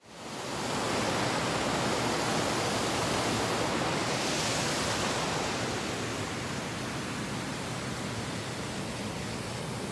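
Brook water cascading over rocks: a steady, even rush that fades in at the start and eases slightly after about six seconds.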